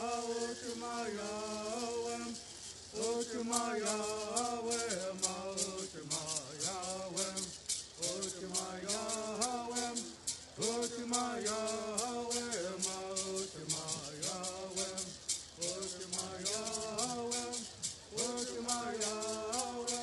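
Southern California Bird Singing: voices chanting a Bird Song in phrases of a few seconds each, keeping an even beat with shaken gourd rattles, about three shakes a second.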